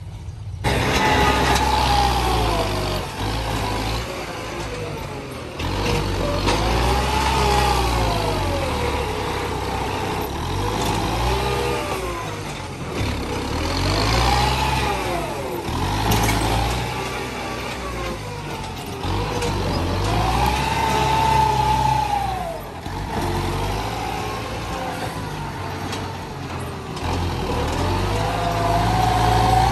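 Diesel tractor engine working under load as its front blade pushes soil, the revs rising and falling over and over every few seconds.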